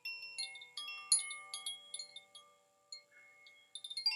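Zaphir spring chime, a tuned wind chime set to G, B, D and A notes, rung in quick irregular strikes whose clear tones ring on and die away. The strikes thin out to a pause around the middle, then another flurry comes near the end.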